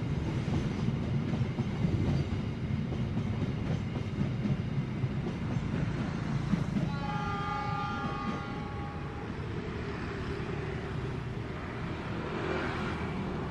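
Argo Wilis passenger carriages rolling past on the rails, a dense low rumble that slowly fades as the train draws away. About seven seconds in, a train horn sounds a chord of several tones for about two seconds.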